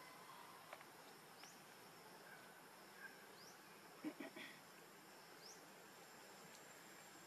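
Near silence: faint outdoor background with a few short, high rising chirps and a brief cluster of soft clicks about four seconds in.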